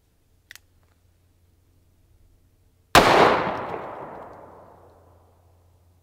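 A single .38 Special round fired from a Rock Island Armory M200 revolver with a 4-inch barrel: one sharp shot about three seconds in, then an echo that dies away over two to three seconds. A faint click comes about half a second in.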